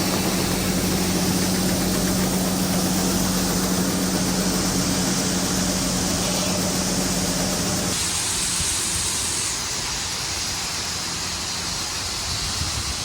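Heavy vehicle engine running steadily with a constant low hum. About eight seconds in the hum drops away, leaving a steady rushing noise.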